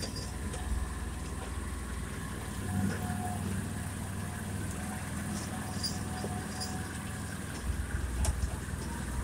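Argo Frontier 6x6 amphibious ATV's engine running as it drives slowly over a rough dirt trail, with a few knocks from the bumps near the end.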